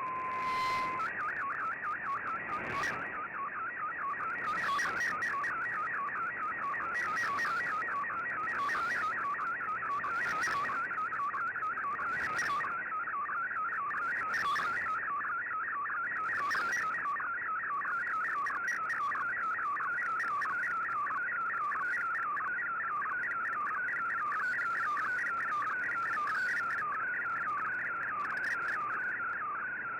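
Slow-scan television (SSTV) image transmission received over shortwave radio: a fast, endlessly repeating warble of sweeping tones, one sweep per scan line. It opens with a brief pair of steady tones, and a burst of static hiss comes through about every two seconds.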